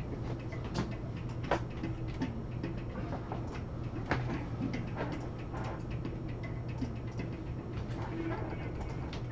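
Irregular clicks of a computer mouse and keyboard, one or two a second, over a steady low electrical hum.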